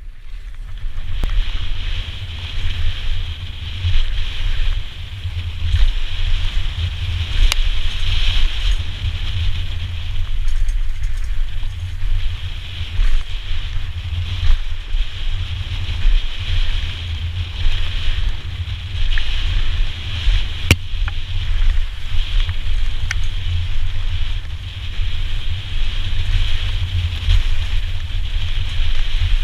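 Wind buffeting the microphone of a helmet camera on a fast mountain-bike descent, a steady rumble over the noise of the tyres on a dirt trail. A few sharp knocks come through, about a third of the way in and twice more past the middle.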